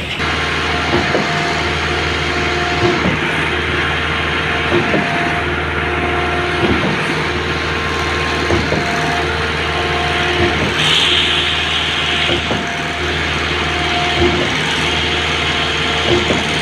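Concrete mixer-pump machine running: a steady engine hum with a knock about every two seconds and a short whine that comes and goes on the same cycle.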